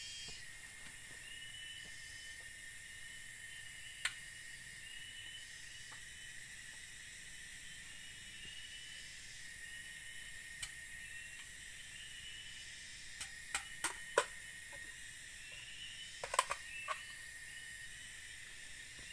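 Steady high-pitched drone of rainforest insects, with a few sharp knocks from a long bamboo pole being handled: one about four seconds in, then a handful near the end.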